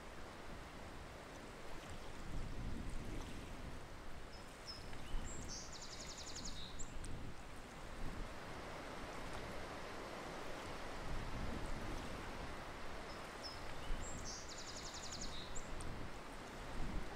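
Outdoor wetland ambience: a steady soft hiss of background noise, with a high, rapid trill from a bird heard twice, about nine seconds apart.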